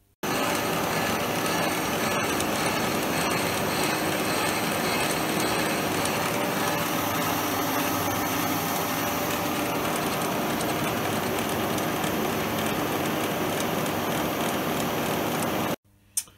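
Schaublin 52 milling machine running, its cutter milling down silver-soldered cross-feed nuts held in the vise. The motor, gearing and cutting make one steady mechanical noise that starts and stops abruptly near the end.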